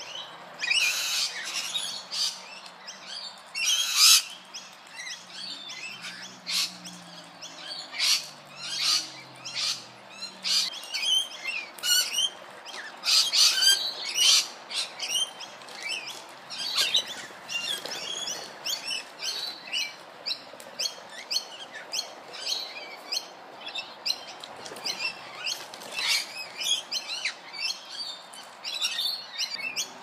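Rainbow lorikeets and galahs calling: a busy, unbroken stream of short, high-pitched chirps and squawks, several a second.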